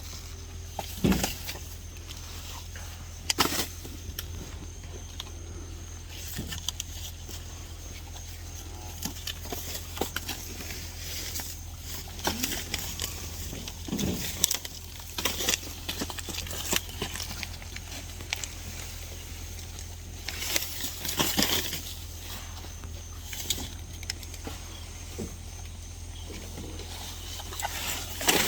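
Cattle moving about: scattered knocks, scuffs and rustles at irregular moments, over a steady low hum.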